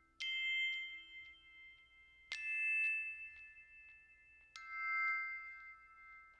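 Background music: three bell-like chimes, each a chord of several ringing notes, struck about two seconds apart and left to ring out.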